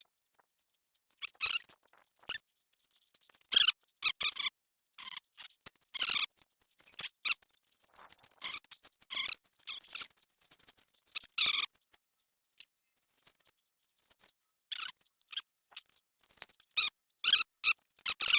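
Short, irregular squeaks and scrapes, about fifteen of them spread over the stretch, with silence between.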